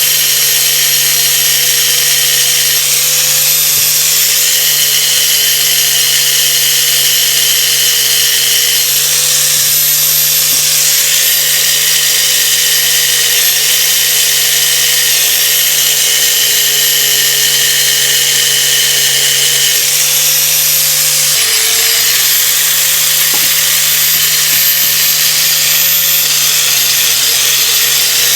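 Hand-held power tool running steadily, a strong abrasive hiss over its motor hum, while cleaning rust and old paint from the vise parts. The motor's pitch dips briefly about 21 seconds in and then recovers.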